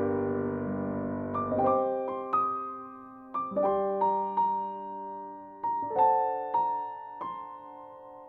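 Background piano music: a slow, gentle melody of single notes, each struck and left to fade, after a held chord dies away.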